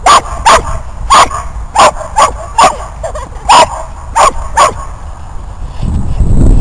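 A dog barking in a run of about nine short, sharp barks over five seconds. A low rumbling noise comes in near the end.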